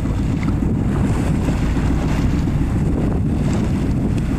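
Wind buffeting the microphone as a steady, loud low rumble, over the rush of a choppy sea around a small boat.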